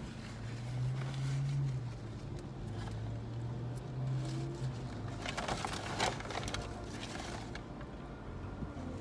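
Low vehicle hum heard from inside a car, strongest for about the first five seconds. A brief crackling rustle comes about five to six seconds in.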